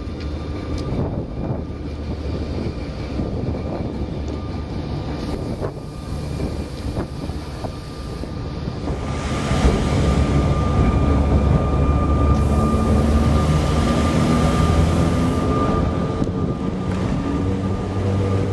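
Electric tram running on its rails: a steady rumble with a thin, steady high tone over it, a few clicks early on, growing louder about halfway through.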